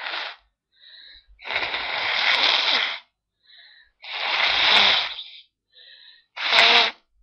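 A person sneezing several times in a row: two long, forceful bursts, then a shorter sharp sneeze near the end, with quick faint breaths between them.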